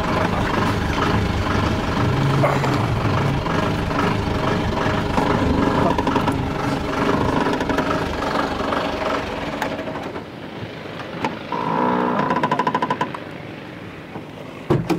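Engines running, among them the diesel of a crawler bulldozer working just ahead on the dirt track. The noise falls away at about ten seconds, and a short rapid buzzing rattle comes a couple of seconds later.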